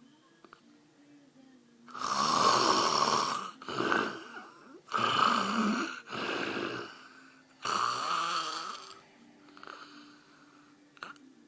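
A man snoring loudly in his sleep: quiet for about two seconds, then a run of five loud snores in close succession, after which it goes quieter near the end.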